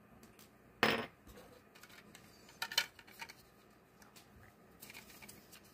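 Light knocks and clatters of a small screwdriver and plastic kit parts being handled and set down on a wooden desk: one sharp knock about a second in, a quick run of clicks near three seconds, and faint ticks near the end.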